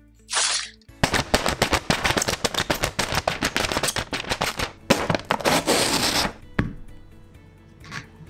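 A short whoosh, then a fast, irregular run of sharp cracking punches as the little steel claw blades stab again and again through a sheet of paper held taut, with a louder tearing rush near the middle. Music plays underneath.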